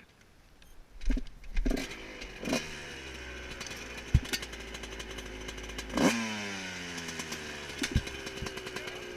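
Enduro motorcycle engine started about a second in, its revs rising and settling to a steady idle, then blipped once about six seconds in and falling back to idle, with a few sharp clicks.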